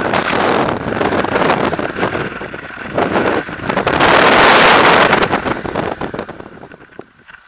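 Loud airflow buffeting the microphone of a paraglider pilot's camera in steep, banked flight, a gusty rush that peaks about four to five seconds in and eases off near the end.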